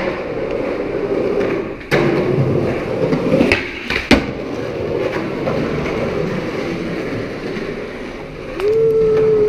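Skateboard wheels rolling on concrete, with a sharp clack about two seconds in and a loud pop-and-landing clack about four seconds in as a trick is done. Near the end a steady tone rises, holds for about a second and a half, and falls away.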